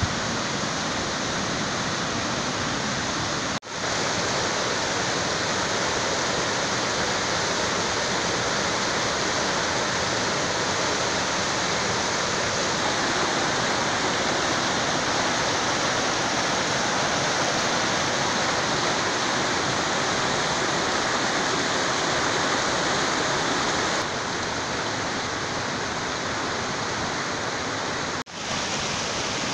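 Fast-flowing stream rushing over rocks: a steady rush of water. The sound drops out briefly twice, about four seconds in and near the end, where the recording is cut.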